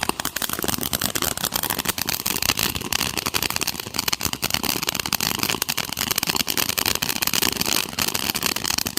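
Fireworks crackling: a dense, irregular rapid run of small sharp pops that starts suddenly and stops suddenly near the end.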